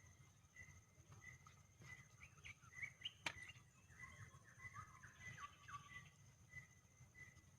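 Faint birdsong: a short chirp repeated about one and a half times a second, with a quick run of falling chirps about halfway through, over a steady high-pitched whine. One sharp click a little after three seconds.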